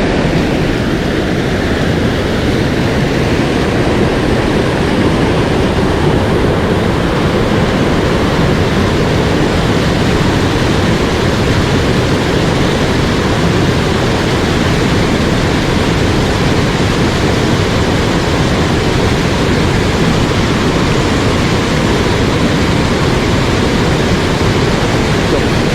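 Mountain stream water rushing steadily over rocks close by, a loud, unbroken roar of white water.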